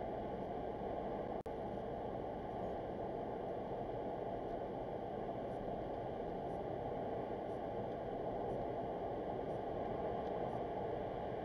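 Steady road and tyre noise of a car driving through a road tunnel, heard from inside the cabin; the sound cuts out for an instant about a second and a half in.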